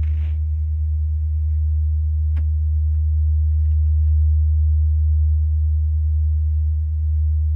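Steady low engine hum heard from inside a parked minivan's cabin, with one faint click about two and a half seconds in.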